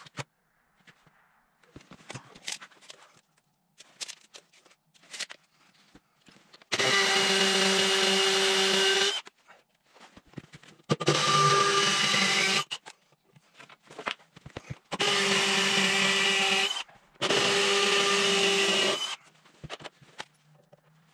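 Cordless drill boring holes into a concrete floor in four runs of about two seconds each, with light knocks and handling noise between the runs.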